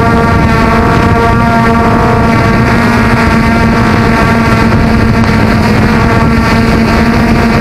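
Engine of a portable fire pump running loudly at a steady high speed, holding one even pitch, with rough wind noise on the microphone.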